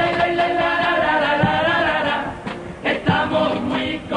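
Carnival chirigota's male chorus singing long held notes together in harmony, with a few low thumps of percussion from about halfway through.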